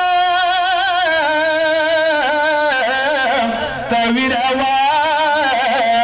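A man's solo voice chanting a Muharram noha (lament) into a microphone: one long held note, then wavering, ornamented runs that rise and fall in pitch.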